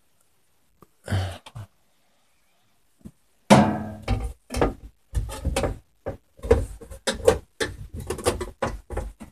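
Knocks and clunks of a burglar alarm unit's plastic cover being handled and fitted back on: one knock about a second in, then an irregular run of knocks from about halfway through.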